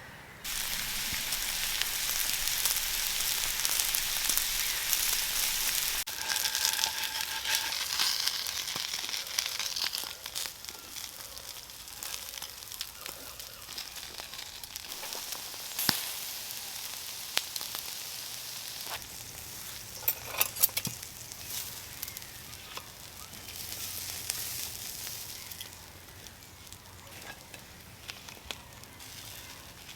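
Food frying in a hot pan over an oak campfire. The sizzle starts suddenly and loud, then settles to a quieter sizzle after about ten seconds, with a few sharp pops.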